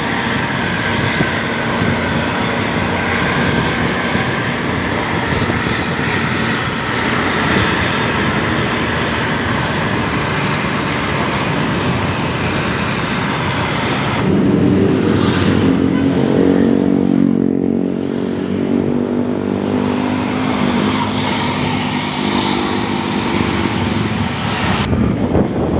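Wind and road noise while following close behind a Luragung Sahara bus. About halfway through, the bus's loud aftermarket exhaust comes through strongly, a low engine note that wavers in pitch, until the rushing noise returns near the end.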